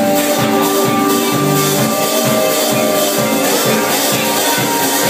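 Live rock band music with a steady beat, and a percussionist playing congas along with it.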